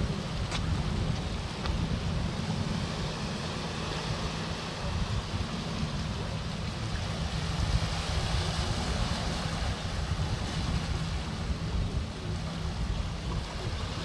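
Small sea waves washing in over a flat rocky shore shelf, a steady surf with a heavy low rumble underneath.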